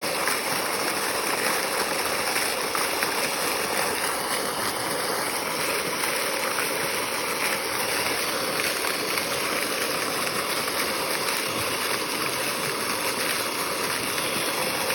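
Water fountain with a small waterfall running, a steady rush and splash of falling water.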